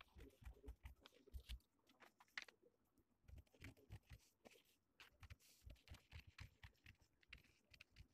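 Faint, irregular snips of large tailoring scissors cutting through a paper blouse pattern, with soft rustling as the paper pieces are handled.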